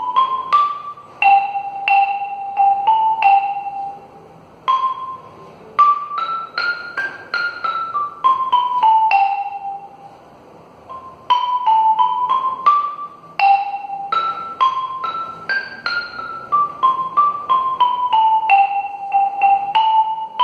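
Wooden marimba played with mallets: a single melody line of struck, ringing notes, with runs stepping downward and short breaks between phrases about four and ten seconds in.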